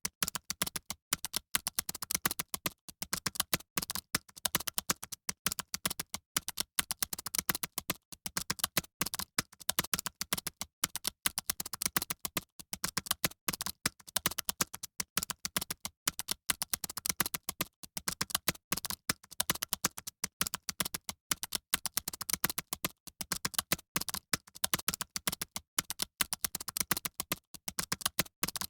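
Fast typing on a computer keyboard: a dense, unbroken patter of key clicks, many keystrokes a second.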